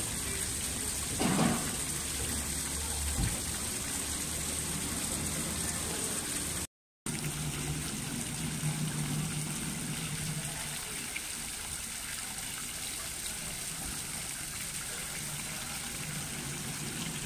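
Water spilling over the rim of a large granite fountain basin and splashing steadily into the pool beneath. A brief gap of silence breaks it about seven seconds in.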